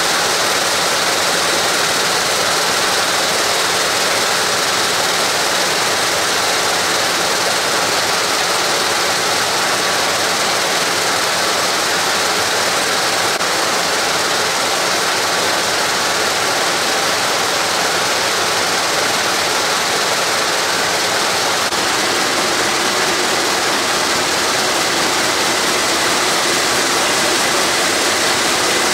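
Rope braiding machines running: a loud, steady, dense mechanical whir and clatter from the spinning bobbin carriers.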